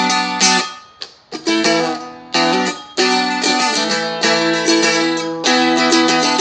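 Seagull Merlin, a small four-string strumstick-type instrument, being strummed in rhythmic chords. The strumming breaks off briefly about a second in, then carries on.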